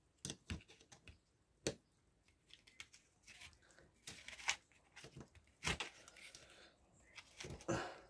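Steel cutter blades and pliers scraping and clicking against a brass clock movement while prying a stiff, pressed-on brass part off its steel arbor: scattered small clicks and scrapes, with a few sharper clicks.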